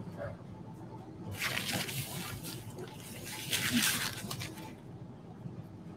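Hot water streaming off a tilted tea tray and splashing into a ceramic bowl below, swelling louder twice for about a second each.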